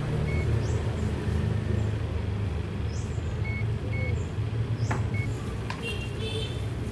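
A steady low mechanical hum, with a few sharp clicks and several short high beeps scattered through it.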